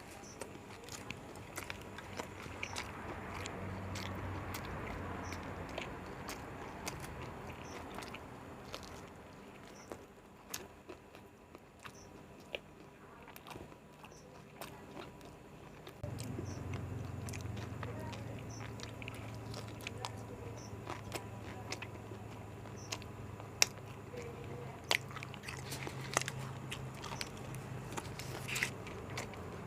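Close-miked eating: egg rolls being bitten and chewed, with many small crunching and wet mouth clicks. Under it runs a low steady hum that gets louder about halfway through.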